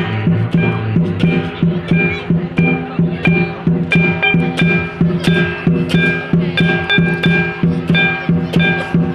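Lion dance percussion ensemble of drum, gongs and cymbals playing a steady, even rhythm of about two ringing strokes a second.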